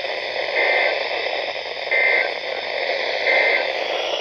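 Three short warbling data bursts of a NOAA Weather Radio SAME end-of-message code, each about a third of a second long and a little over a second apart, over steady radio static hiss. This signal closes the weekly test broadcast.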